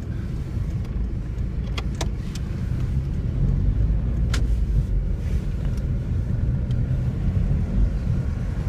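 Car driving, with steady engine and road rumble heard from inside the cabin, growing a little louder about three seconds in as the car draws alongside a road-maintenance truck. A few sharp clicks cut through near the two- and four-second marks.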